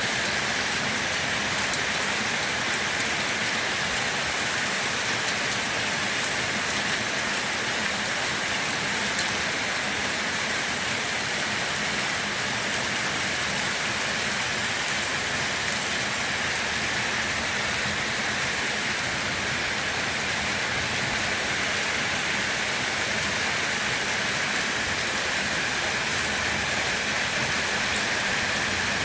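Steady rain falling on a surface, an even unbroken patter with faint individual drop ticks.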